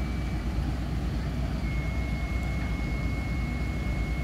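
Steady low rumble of heavy crane diesel engines holding a steel bridge girder in a lift, with a thin high-pitched tone that drops out about half a second in and comes back about a second later.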